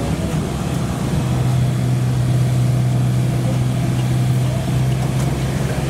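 Road train's engine running steadily, heard from inside the passenger carriage as it moves along, with a low hum that gets stronger about a second in.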